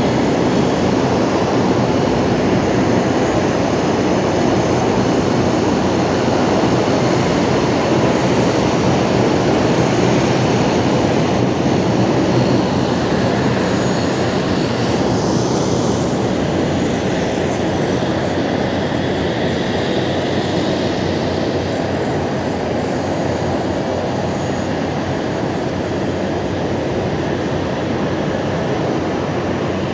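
Turboprop engines of a taxiing De Havilland Dash 8 Q400, a loud steady rushing drone that eases a little in the second half.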